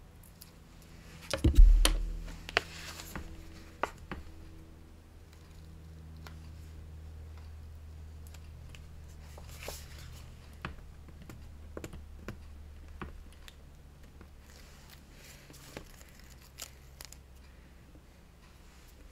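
Paper and craft materials being handled on a tabletop: a loud thump about a second and a half in, then scattered taps, clicks and rustles.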